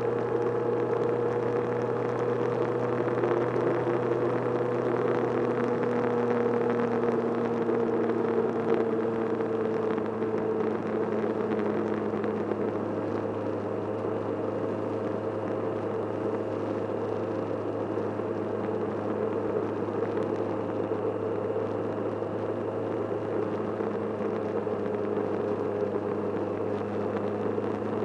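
Touring motorcycle riding at a steady cruising speed on a wet road: engine hum and a steady whine under a constant rush of wind and road noise, the pitch easing down slightly about ten seconds in.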